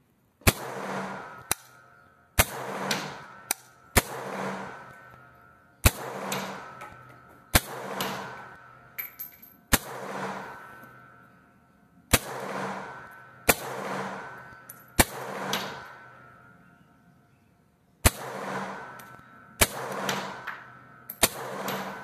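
AK-47 rifle fired in slow, separate single shots, about a dozen spaced one to two seconds apart. Each sharp crack is followed by a long echoing decay.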